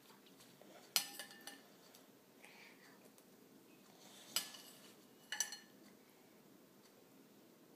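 A metal spoon clinking against a glass bowl of soup: a few short, faint clinks, the last a quick double.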